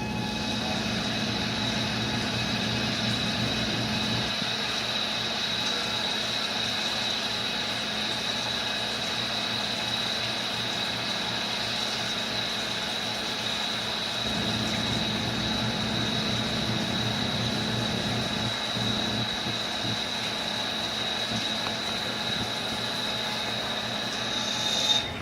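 CNC lathe machining a stainless steel part: a steady high whine over the machine's running noise, with a lower hum that drops away about four seconds in and comes back midway. Near the end the whine swells briefly and then stops.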